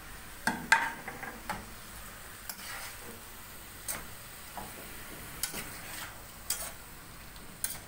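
A spoon stirring chicken and vegetables in a metal pot, knocking and scraping against its side in about eight irregular clicks. A faint sizzle of the food frying lies underneath.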